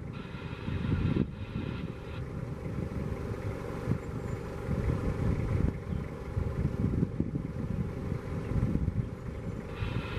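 Safari vehicle's engine running at low revs, a steady low rumble.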